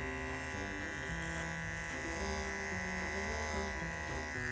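Electric body-hair trimmer buzzing steadily with a high whine, over background music whose low notes step in pitch about every half second.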